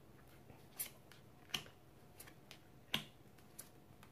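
Tarot cards being drawn from the deck and laid face-up on a table: a few sharp card snaps and taps, three of them louder than the rest.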